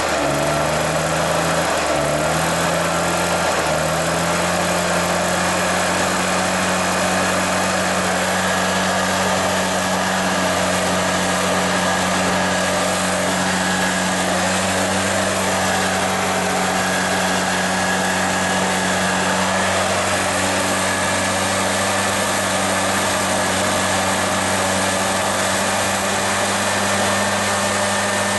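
Husqvarna 150BT backpack leaf blower's two-stroke engine running on its freshly rebuilt cylinder and piston. Its pitch wavers for the first few seconds, then it settles and runs steadily.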